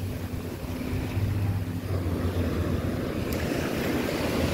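Small waves washing onto a sandy beach, with wind on the microphone and a steady low hum underneath; the surf grows louder about halfway through.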